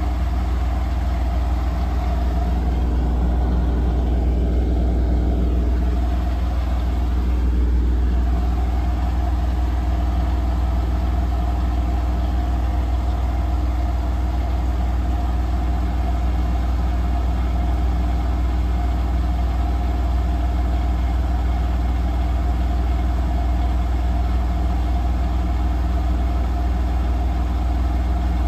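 Profilo Premium-9 front-loading washing machine drum spinning during its final spin with an unbalanced load: a steady deep hum with several constant motor tones above it, shifting briefly a few seconds in and then holding steady.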